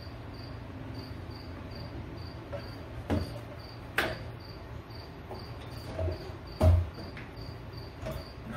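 A cricket chirping steadily, about two chirps a second, with a few knocks and clacks as the plastic-and-aluminium tripod light is handled; the loudest is a thump about two-thirds of the way in.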